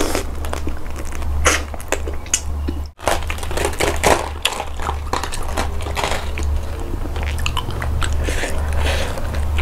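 Close-miked eating: chewing a raw shrimp, then a head of iceberg lettuce torn apart, its crisp leaves crunching and snapping. A steady low hum runs underneath.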